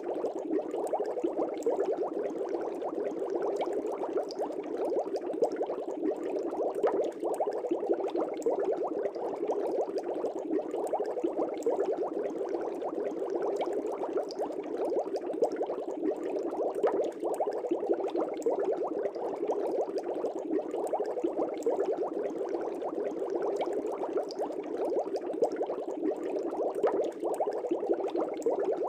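Air bubbles rising and popping in an aquarium: a steady, dense bubbling made of many small pops.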